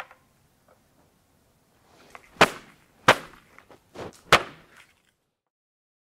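Three loud, sharp bangs, the second about two-thirds of a second after the first and the third about a second later, with a few smaller knocks between them.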